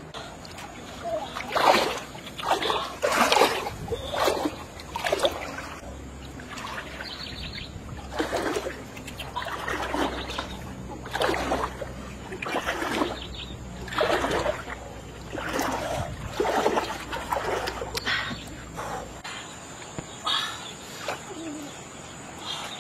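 Water splashing again and again as a long wooden pole is plunged into the water and pulled out to push a raft along, about one splash a second.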